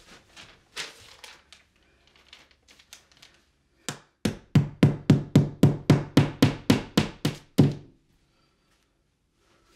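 Hammer driving a nail through a paper sign into a wall: light rustling and handling first, then about fifteen quick, even blows at roughly four a second, which stop suddenly.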